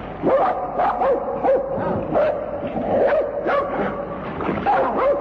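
A team of sled dogs barking and yipping, with many short calls overlapping throughout.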